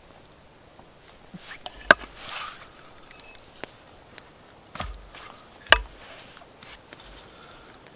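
Handling sounds of a home-made wooden frame saw as its cord is wound and twisted tight with a toggle stick: soft cord and cloth rustle with scattered sharp wooden clicks, the two loudest about two seconds in and just before six seconds.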